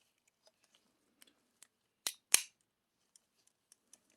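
Mechanism of an A.G.A. Campolin Italian stiletto switchblade, a leaf-spring pull-ring action: two sharp metal clicks about a quarter second apart near the middle, the second the louder. Faint small handling ticks come before and after them.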